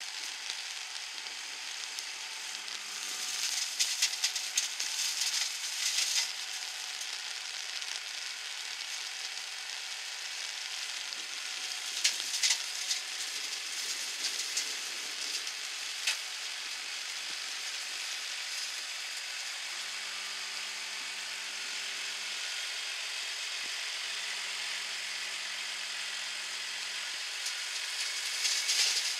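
Heavy rain hissing steadily, with a New Holland TS115 tractor's side-arm flail hedge cutter working a hedge. Louder crackling bursts come about 3 to 6 seconds in, around 12 seconds and near the end.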